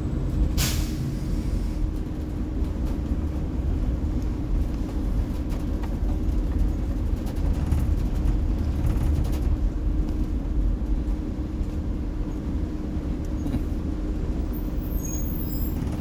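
Cabin sound of a 2018 Blue Bird electric school bus under way: a steady low rumble of tyres and chassis with no engine note. A brief hiss comes about half a second in.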